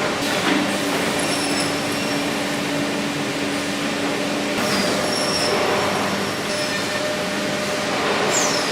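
Wood-processing machinery running steadily: a continuous mechanical noise with a held low hum for the first few seconds and a few brief high squeals, one of them falling in pitch near the end.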